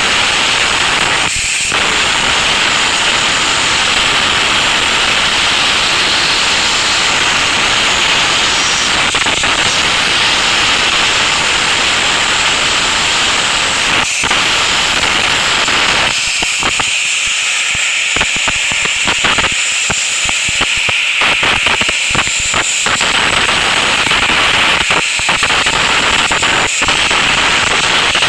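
Abrasive blasting nozzle hissing continuously under compressed air, with a stretch of stop-start spurts a little over halfway through.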